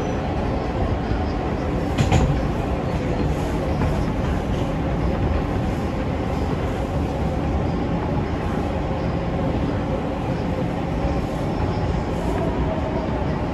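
New York City R160 subway train heard from inside the car while running: a steady rumble of wheels on rail and car noise, with one sharp clack about two seconds in.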